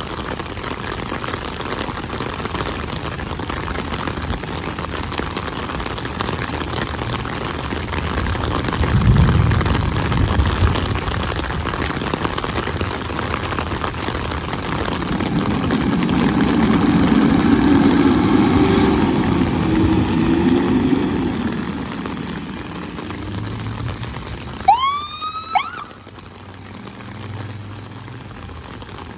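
Heavy rain hissing steadily on wet pavement while a fire engine's diesel engine rumbles and swells louder through the middle as the engine pulls out. Near the end an emergency siren gives two short rising whoops.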